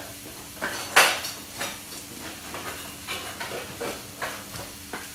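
Metal kitchen utensil knocking and scraping against a frying pan in a string of sharp clinks, the loudest about a second in, over a low hiss of meatballs frying.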